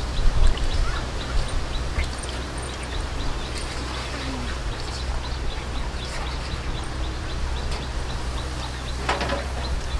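Hands swishing green beans in a metal bowl of water, with a short splash about nine seconds in. A steady low rumble runs underneath, with faint bird chirps in the background.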